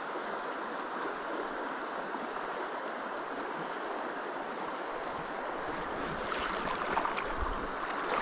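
River water flowing steadily, with faint clicks and rustles near the end.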